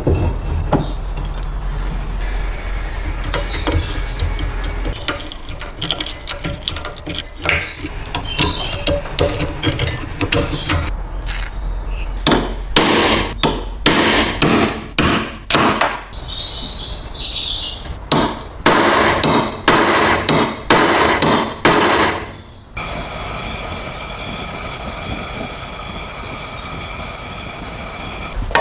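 Metal tools knocking and tapping on a rusty stapler, followed by a run of repeated scraping strokes. The last several seconds hold a steady hum with many overtones.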